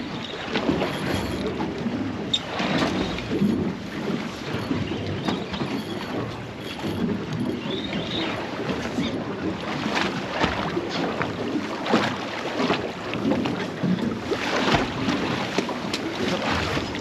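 Wind buffeting the microphone and water slapping against a small boat, with scattered splashes as a hooked cod thrashes at the surface.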